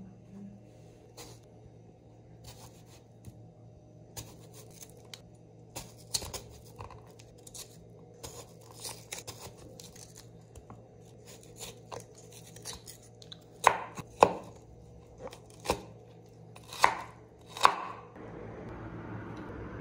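A santoku knife slicing soft boiled Indian gooseberries (amla) on a wooden cutting board: soft, irregular taps of the blade, then several louder knocks of the knife on the board in the second half.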